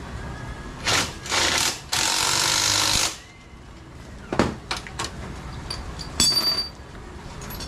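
A compressed-air tool run in three bursts, the last a steady hiss about a second long. Then a few sharp knocks and clinks of metal tools.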